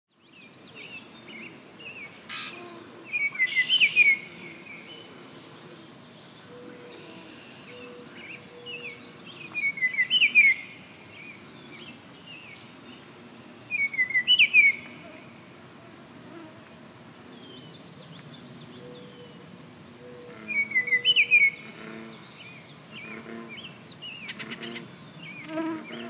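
Baltimore oriole singing: four loud whistled phrases several seconds apart, over fainter chirps of other birds.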